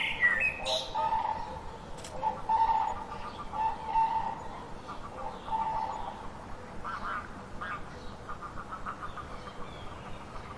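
Dry-erase marker squeaking as it is dragged across a glossy notebook cover: repeated short held squeaks, then rows of quick chattering squeaks in the second half of the strokes.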